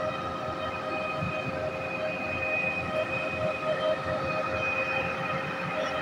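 Truck-mounted concrete pump running: a low engine rumble under a steady high whine from its machinery.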